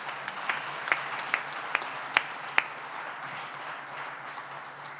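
Audience applauding, with a few sharp, loud claps standing out in the first two and a half seconds before the clapping evens out and slowly dies down.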